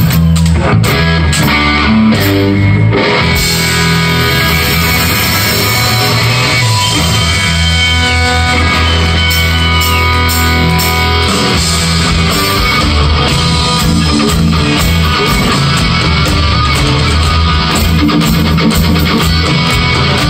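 Live rock band playing an instrumental passage: electric guitar over bass guitar and drums, loud and steady, with a couple of short bent guitar notes midway.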